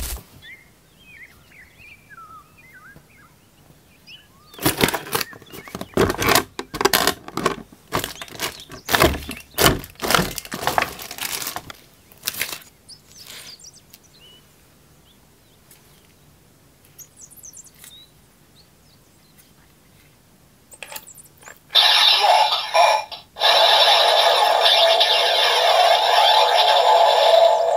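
Hard plastic toy parts and packaging handled by hand: a quick run of clicks, taps and knocks from about five to twelve seconds in, with quiet stretches around it. A loud, steady electronic sound starts suddenly about twenty-two seconds in.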